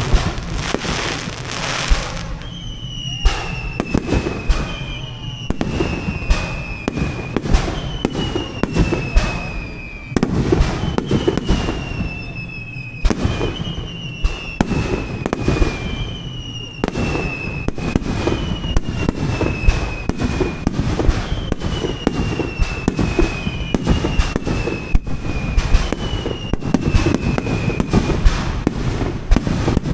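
Aerial fireworks bursting in quick, irregular succession: many sharp bangs and cracks over a continuous low rumble. Through most of the stretch a high tone slides down in pitch again and again, about every one and a half to two seconds.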